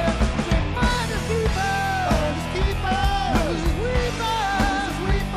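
A rock band playing live on electric guitar, bass guitar and drums, with a steady drum beat and bending lead lines over it.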